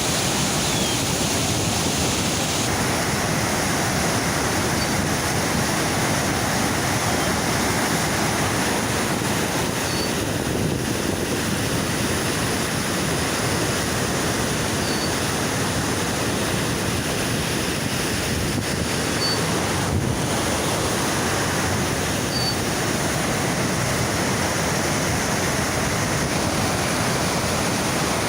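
Steady, loud rushing roar of the Niagara River's rapids just above the falls, white water churning without a break.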